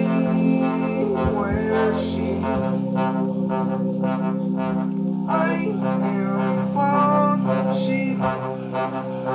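Big band horn section playing: saxophones and brass hold a long low chord while short, higher horn phrases come in over it several times.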